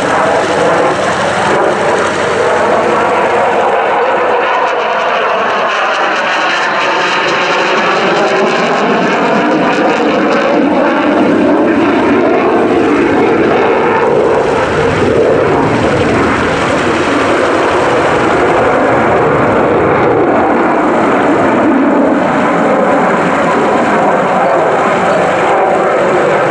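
F-16 fighter jet's Pratt & Whitney F100 turbofan engine running loud and steady through a display pass, with a sweeping, phasing change in its tone between about four and ten seconds in.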